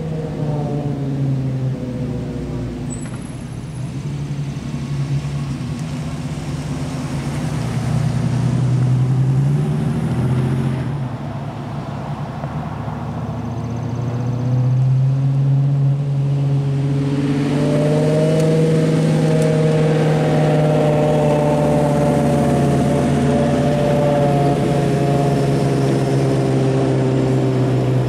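Car engines driving past one after another, a pickup truck and then a red sports car, their pitch rising and falling as they accelerate and shift. The loudest engine note comes in the second half and holds fairly steady.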